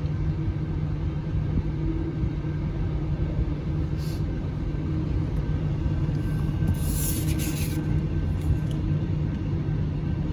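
Long freight train rolling past a grade crossing: a steady low rumble of wheels on rail. A brief hiss comes about seven seconds in.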